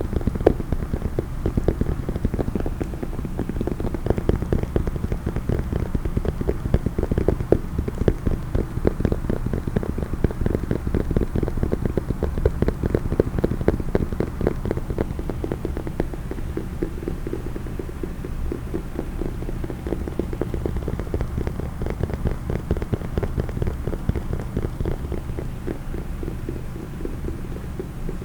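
Fast, continuous tapping on a case, many taps a second, easing a little in the second half.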